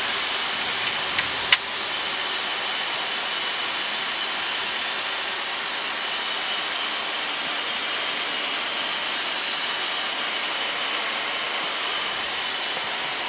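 Steady flight-deck noise of a Boeing 737-800 on final approach: an even rushing hiss of air with faint steady high tones. A single click about a second and a half in.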